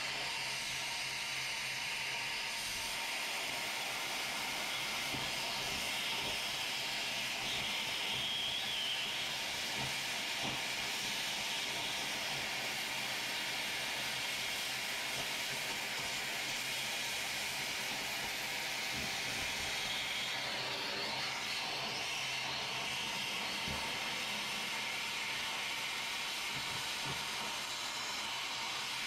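Oxy-fuel cutting torch hissing steadily as it cuts through steel, the flame and cutting-oxygen jet blowing sparks off a rusted suspension bracket.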